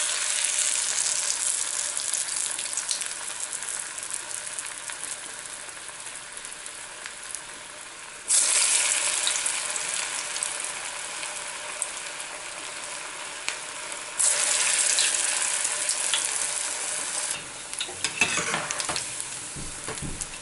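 Chana dal pakoda batter dropped into hot vegetable oil and deep-frying with a loud, steady sizzle that starts suddenly. The sizzle surges twice more, about eight and fourteen seconds in, as more batter goes in. Near the end a perforated skimmer stirs the frying pakodas with a few short scrapes.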